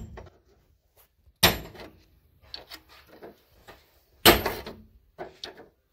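Two loud metal bangs about three seconds apart, with smaller knocks and clicks between, as a hand tool strikes the stripped sheet-metal body inside the car's footwell and dash area.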